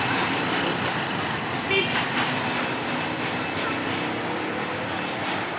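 Freight train rolling away along the track, a steady noise of wheels on rails that slowly eases off. A brief high chirp comes about two seconds in.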